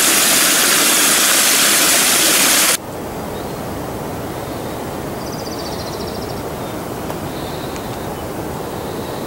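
Small mountain stream rushing and splashing over rocks as a water bottle is filled in it. It cuts off abruptly a little under three seconds in, and a quieter, steady hiss follows, with a faint high trill about five seconds in.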